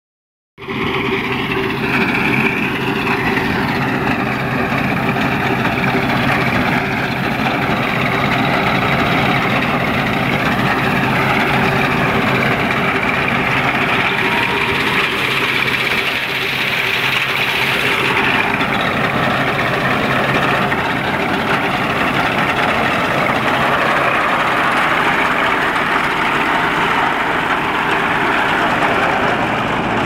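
Massey Ferguson 1035 DI tractor's three-cylinder diesel engine running steadily under load while it drives a front-mounted reaper cutting wheat, a constant hum at an even pitch.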